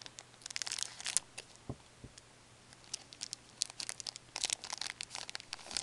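Foil wrapper of an Upper Deck Artifacts hockey card pack crinkling and tearing as it is opened by hand, in two spells of quick crackles.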